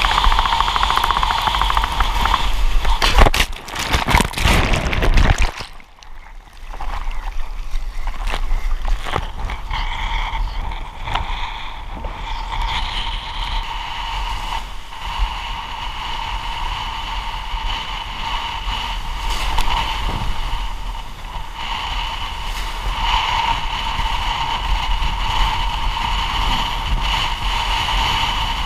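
Wind buffeting a camera mounted on a windsurf rig, with water rushing and splashing past the board as it planes through rough, breaking sea. A few seconds in comes a loud, rough stretch of spray and buffeting that cuts off sharply, then the steady rush returns.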